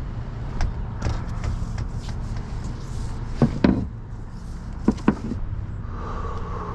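Steady low rumble with two pairs of sharp knocks, the first about halfway through and the second about a second and a half later.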